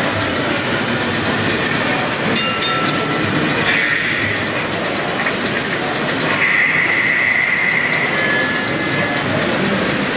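O-gauge model tram running on the layout's track, its wheels rolling with a high squeal that comes and goes, longest from about six to nine seconds in.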